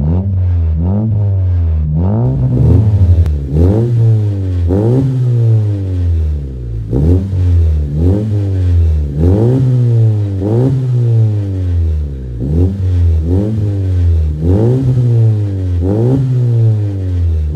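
2018 Honda Civic RS turbocharged four-cylinder breathing through a full turboback exhaust with titanium mufflers, revved in quick throttle blips while stationary. Each blip rises sharply in pitch and falls back toward idle, a little more than one a second.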